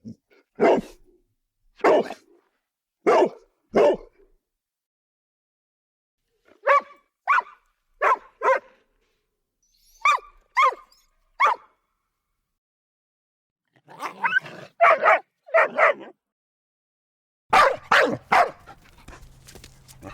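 Dogs barking in short separate sequences, one dog after another. First come four deep, spaced barks, then a higher-pitched series of barks, then quicker runs of barks in close pairs, and a last group near the end over faint background hum.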